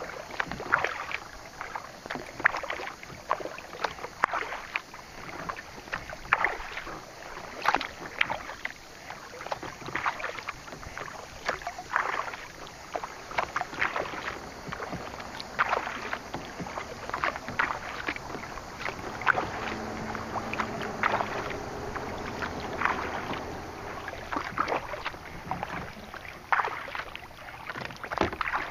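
Kayak paddle strokes dipping and splashing in the water, roughly one stroke a second, in an even steady rhythm.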